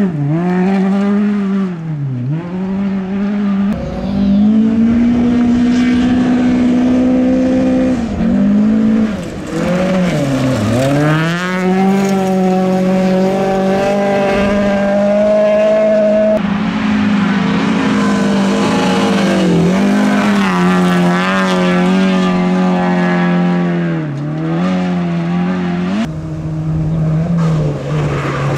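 Rally car engines at full throttle, first a VW Golf Mk2, then a Volvo 240, then a Volvo 940, each running at high revs. The pitch drops sharply and climbs again about half a dozen times at gear changes and lifts for corners, and wavers rapidly at times as the revs flare on loose gravel.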